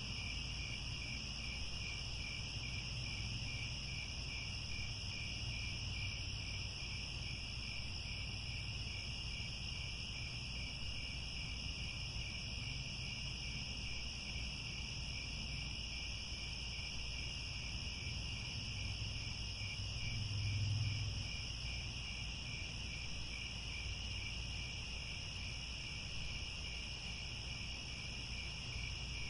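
Crickets chirping in a continuous, steady chorus of high pulsing trills. A low rumble underneath swells briefly about two-thirds of the way through.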